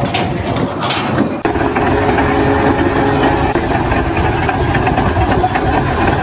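An engine running steadily at idle, with two sharp clicks in the first second. The sound changes abruptly about a second and a half in to a steadier engine hum.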